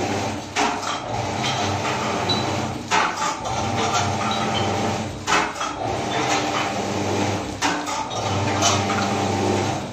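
Automatic vertical pouch packing machine for nuts and spices, mechanically driven with no air compressor, running: a steady motor hum with a pair of metal clunks about every two and a half seconds as it fills and seals each pouch.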